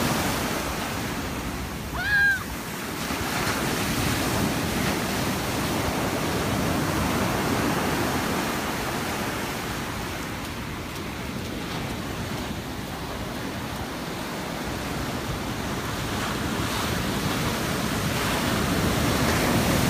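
Ocean surf breaking and washing up a sandy beach in a steady rush that swells and eases. A brief high-pitched cry about two seconds in.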